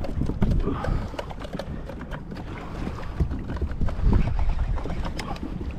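Wind buffeting the microphone and sea water slapping against a kayak's hull, with scattered small clicks and knocks throughout.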